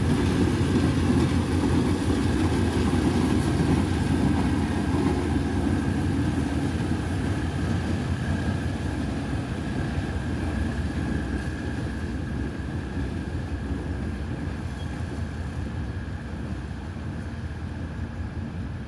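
Diesel locomotive hauling passenger coaches: a low engine and wheel rumble with a steady high whine above it, slowly fading as the train moves away.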